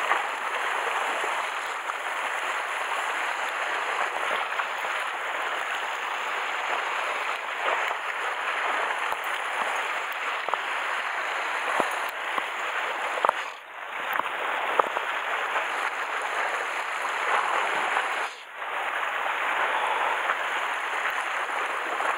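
Steady wash of sea water lapping and splashing against shore rocks, dropping away briefly twice around the middle.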